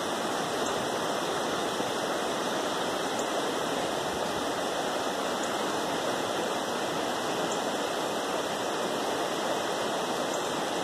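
The Cuyahoga River in flood, its high, fast brown water rushing and churning over the riverbed: a steady, even noise of rushing water.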